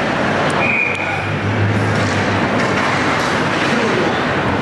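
Ice hockey being played in an indoor rink: steady arena noise with skates on the ice, two sharp stick-and-puck clicks about half a second and a second in, and a short high-pitched tone just under a second in.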